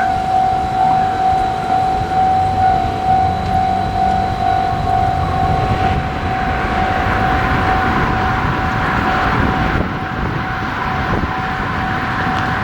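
Japanese railroad crossing's electronic warning bell ringing a steady, repeating "kan-kan" tone. From about six seconds in, the rushing noise of a JR Tokaido Line train passing through the crossing rises under it and eases off near ten seconds.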